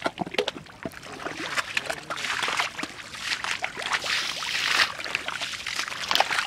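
Muddy water sloshing and squelching as hands and legs work through thick wet mud, with trickles and splashes of muddy water scooped up and poured off with a bowl. Crackly and uneven, swelling louder a couple of times.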